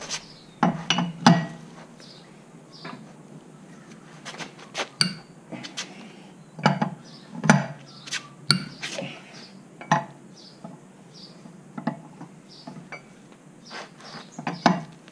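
A steel four-way cross wheel brace clinking and knocking against the alloy wheel's nuts as it is fitted and turned to loosen them. There are irregular sharp metallic clicks and knocks, the loudest cluster about a second in.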